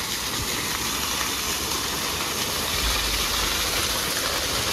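Waterfall pouring down artificial rockwork: a steady rush of falling, splashing water.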